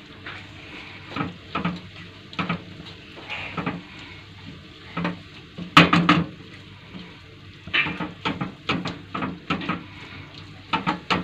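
Spatula stirring and pressing a thick rice-flour mixture in a nonstick wok, breaking up lumps, with irregular knocks and scrapes against the pan. The loudest cluster of knocks comes about six seconds in.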